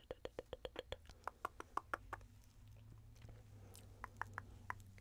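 Close-miked ASMR mouth sounds: a quick run of dry mouth clicks, about eight a second, then slower tongue clicks with a hollow pitch that shifts from click to click, a pause, and a few more tongue clicks near the end.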